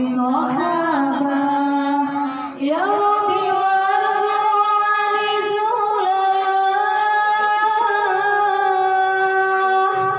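A woman singing a sholawat unaccompanied into a microphone, holding long drawn-out notes, with a brief break and a rise in pitch about two and a half seconds in.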